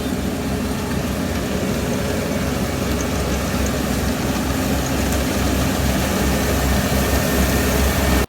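Kubota ER470 combine harvester's diesel engine running steadily, with a deep, even drone.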